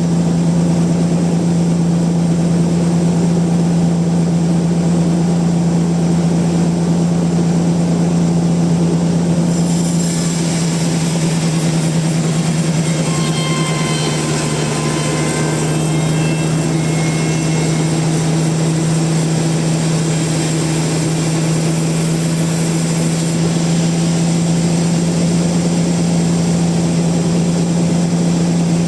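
Band sawmill running with a steady engine drone at constant speed. For about thirteen seconds in the middle a higher hiss joins the drone.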